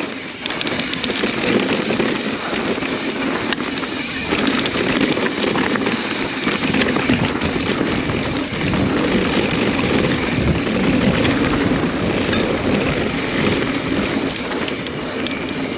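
Yeti SB130 mountain bike ridden fast down a rough dirt trail, heard from the bike or rider: a steady rush of tyre and trail noise with constant small rattles and clicks from the bike.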